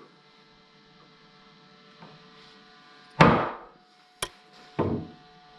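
Hammer blows on a steel offset pricker set in the peg hole of an oak brace joint, marking the drawbore offset: one heavy knock about three seconds in, then a sharp click and a lighter knock. A faint steady hum runs underneath.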